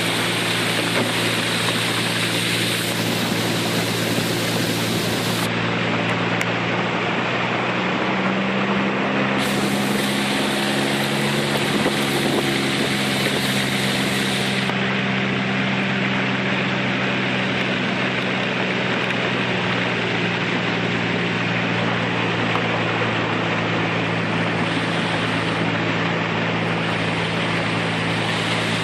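Small boat's motor running steadily under way, with a rushing hiss of wind and water. The engine note shifts slightly about a third of the way through.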